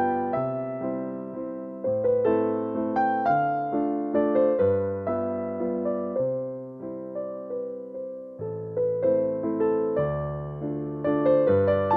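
Background piano music: single notes struck and fading in a melody over changing chords.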